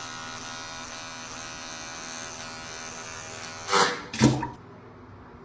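Electric shaver buzzing steadily against the face, then cutting out near the end. Two short, loud cries about a second apart break in as it stops.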